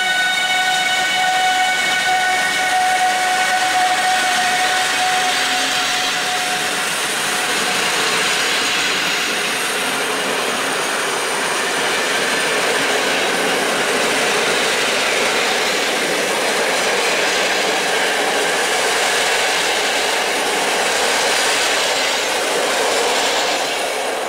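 Passenger coaches rolling past behind a departing Newag Griffin EU160 electric locomotive: a steady rush and rumble of wheels on rail, with some clickety-clack. A high, steady whine from the locomotive fades out over the first several seconds, and the train noise begins to die away near the end.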